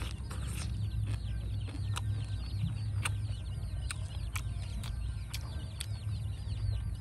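Chicks peeping in a constant many-voiced chorus of short falling chirps. A few sharp clicks or taps sound now and then over a steady low hum.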